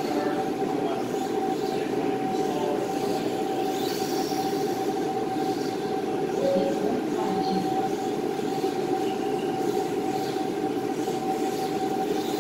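Steady mechanical rumbling hum with a constant tone running through it.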